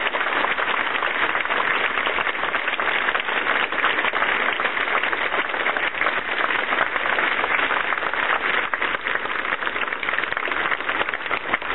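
A large crowd applauding, with dense, steady clapping.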